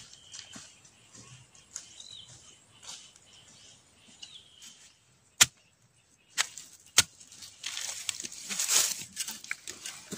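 Dry leaves and grass crackling and rustling as they are handled and cleared around a bamboo shoot, starting about three-quarters of the way in. Before that, a bird gives a short call three times, and two sharp clicks sound in the middle.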